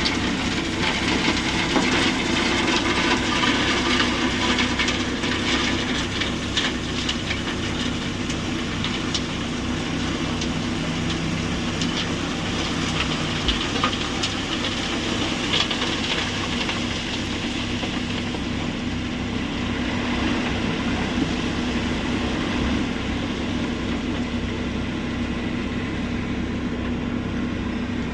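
Stone crusher plant machinery running steadily: a constant diesel engine hum with an irregular clatter throughout.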